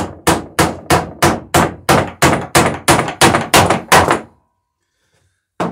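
Hammer blows riveting a dory's wooden bottom boards, the fastening held up by a heavy iron backer: a steady run of sharp strikes, about three a second, stopping about four seconds in, then one more knock near the end.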